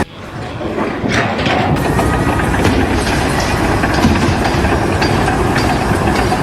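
Loud, steady mechanical rumble of a heavy engine or machinery running, with no clear rhythm.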